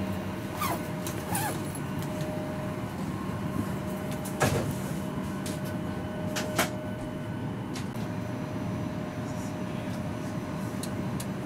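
Steady hum of a parked airliner's cabin, with a couple of short squeaks early on and two sharp knocks, about four and a half and six and a half seconds in.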